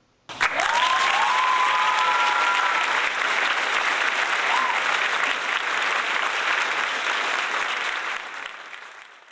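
Crowd applause with cheering, a few whoops over the clapping in the first few seconds. It starts suddenly and fades out near the end.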